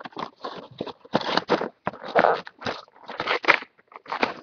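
Plastic and cardboard toy packaging being handled and opened, crinkling and crackling in irregular bursts.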